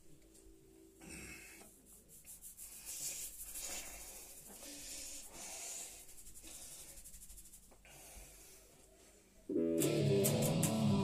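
Breathy, wheezing noises into a microphone, rising and falling, then an electric guitar comes in loud and sudden about nine and a half seconds in.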